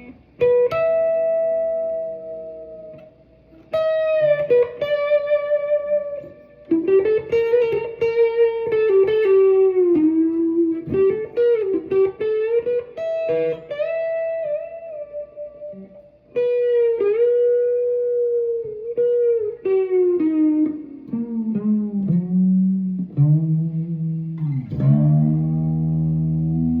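Epiphone 339 electric guitar fitted with a Guyker roller-bridge tremolo: single plucked notes ring out, their pitch sliding and wobbling up and down. Near the end a note slides steadily down.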